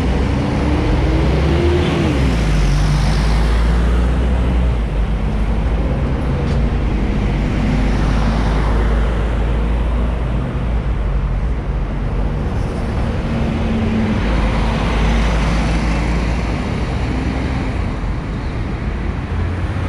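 Articulated city bus's diesel engine pulling away from the stop, its note rising and then dropping about two seconds in as it changes gear, followed by a steady traffic rumble as cars and another bus pass.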